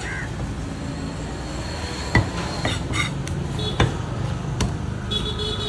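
A large curved knife chops through fish onto a wooden log block, giving a few separate sharp knocks. The loudest come about two seconds in and again near four seconds.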